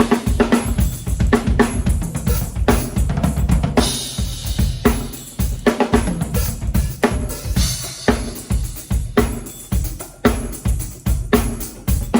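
Drum kit being played: a steady run of bass drum and snare hits, with a cymbal wash about every four seconds.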